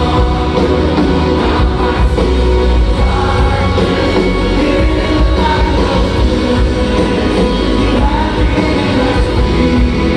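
Rock song with a singing voice, playing steadily.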